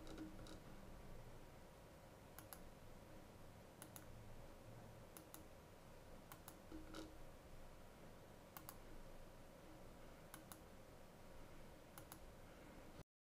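Faint computer mouse button clicks, each a quick press-and-release, one every one to two seconds over a low steady hum; the sound cuts off just before the end.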